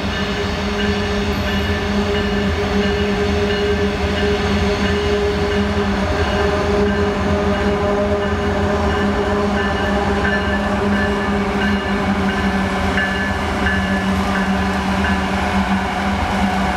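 A train at a grade crossing: a steady drone from diesel locomotive engines with the rumble of the train under way.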